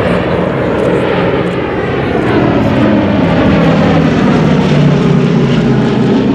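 Propeller airplane flying past, its engine note falling in pitch as it goes by and loudest about five seconds in.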